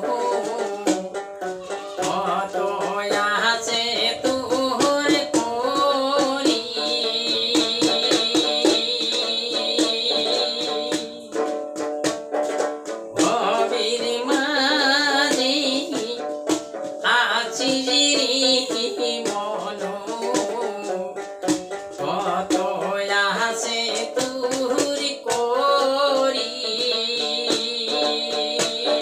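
Man singing a Goalpariya folk song while plucking a rapid, steady accompaniment on a folk lute with a gourd body and bamboo neck.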